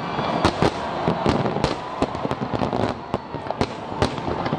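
Aerial fireworks shells bursting in quick, irregular succession: a steady crackle with several sharp bangs each second.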